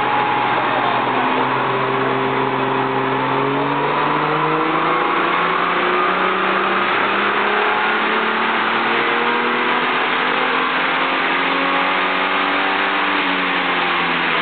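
Holden VR Commodore's 4.3-litre stroked Buick-based V6 pulling under load on a chassis dyno, its revs climbing steadily through most of the run.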